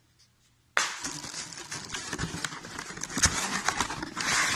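Packaging being handled during an unboxing: dense rustling and crinkling with small clicks and knocks, starting suddenly about a second in.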